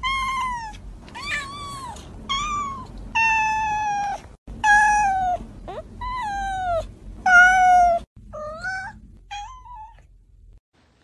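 A long-haired, blue-eyed cat meowing over and over: about nine drawn-out meows roughly a second apart, most dropping in pitch at the end, the last few shorter and fainter.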